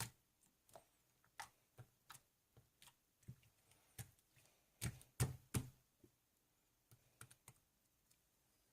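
Irregular light clicks and taps, a few a second, the loudest cluster about five seconds in, dying away a little after seven seconds.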